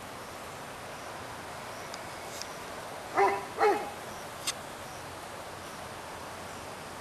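A dog barks twice in quick succession, two short loud barks about half a second apart, over a steady background hiss.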